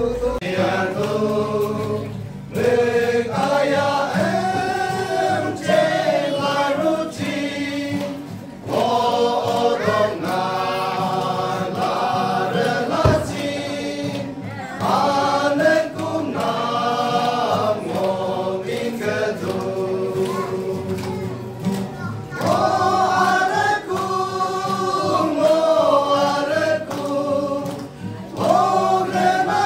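A men's choir singing a gospel song together in phrases, with short pauses for breath between lines, accompanied by a strummed acoustic guitar.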